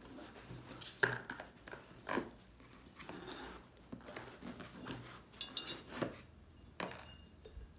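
Handling noise as a Royal Albert English Chintz bone china teapot is worked out of its foam box insert: foam and cardboard rubbing and scraping, with scattered knocks and a few light clinks. The sharpest knocks come about a second in and near the end.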